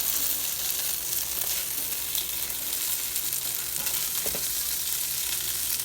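Boneless chicken with onion, ginger-garlic paste and spices sizzling steadily in butter in a frying pan as it is stirred, with a light knock of the spoon against the pan about four seconds in.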